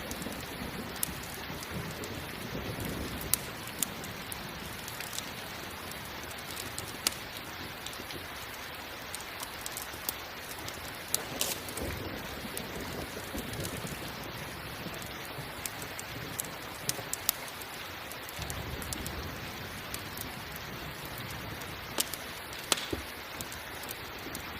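Steady rain mixed with a crackling campfire: an even hiss of rain with scattered sharp pops and snaps at irregular times, and a low rumble about three quarters of the way through.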